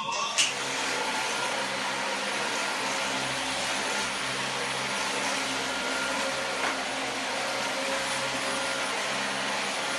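Vacuum cleaner motor running steadily: an even hiss over a constant hum, with one brief click about two-thirds of the way through.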